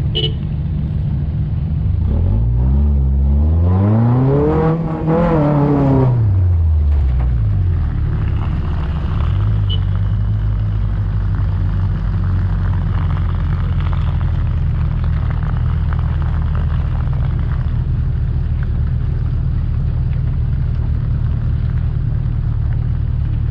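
Off-road 4x4's engine under way on a dirt track: the revs climb for a few seconds, dip briefly, fall away again, then settle into a steady low drone.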